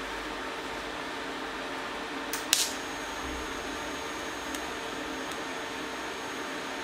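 TIG welder tacking a steel patch into a motorcycle petrol tank: a steady hiss and low hum from the welding set, with one sharp crackle about two and a half seconds in as the arc strikes.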